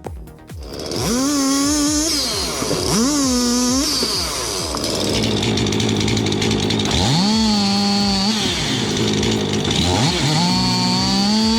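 Chainsaw engine revved up four times, each rev rising in pitch, holding about a second and dropping back, with the saw running steadily in between. Background music underneath.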